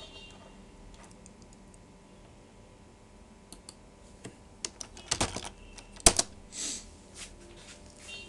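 Typing on a computer keyboard: a few scattered key clicks, then a quick run of keystrokes about five seconds in, with the loudest single key strike about a second later.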